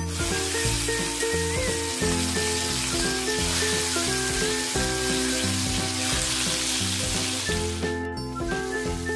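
Rohu fish steaks sizzling steadily as they fry in hot oil in a wok over medium to high flame, with background music underneath. The sizzle cuts off sharply near the end.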